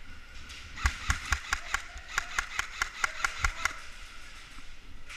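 Airsoft rifle firing a quick string of single shots, about five a second, about fourteen sharp cracks, starting about a second in and stopping after about three seconds.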